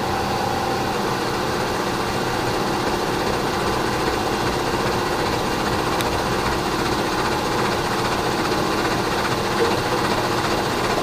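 Milling machine running with its cutter taking a steady cut, trimming 1/8 inch off the ends of two steel vise-jaw blanks, a continuous even machining noise.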